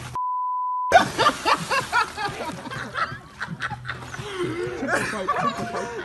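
A short steady beep near the start, then several people laughing and snickering with bits of talk.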